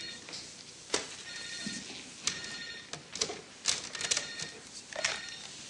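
Electronic telephone ringer trilling in short bursts, at the start and again about a second and a half in. This is followed by a string of sharp clicks and knocks from electronic equipment on a table being handled.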